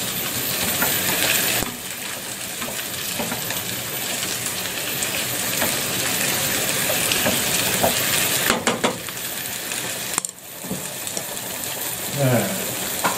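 Sliced water chestnuts and bamboo shoots sizzling in a saucepan while a wooden spatula stirs and scrapes them, with a few sharper scrapes and knocks against the pan around the middle. The sizzle dips briefly a little later.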